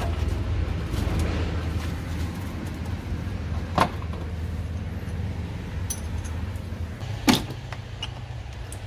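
Hand work on a van's battery: two sharp metallic clicks about three and a half seconds apart, with small rattles between, over a steady low hum.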